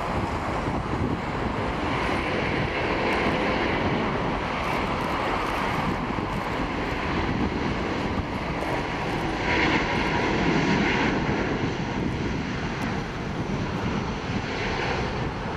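Airbus A380-841's four Rolls-Royce Trent 970 turbofans at takeoff thrust on departure: a steady, dense engine noise that swells and eases slightly.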